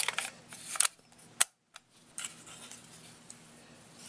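Magazine of a SCCY CPX-2T 9mm pistol being worked in and out of the grip: three sharp clicks in the first second and a half, then light handling noises.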